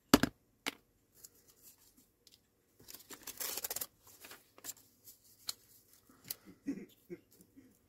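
Paper crafting at a desk: a sharp knock just after the start, then about a second of rasping paper rustle a few seconds in, as a glue stick is rubbed and a paper cut-out handled, followed by light taps and clicks.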